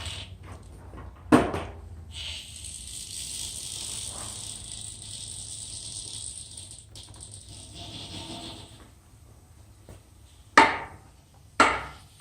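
Rear wheel noise after a bearing change: a steady high-pitched hiss for several seconds, with a sharp knock about a second in and two more near the end.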